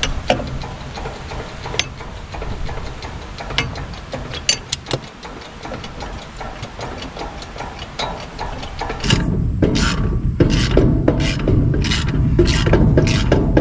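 Lug wrench and socket working on a trailer wheel's lug nuts: scattered metal clicks and scrapes, then about nine seconds in a louder, quick repeated rasping, roughly two strokes a second.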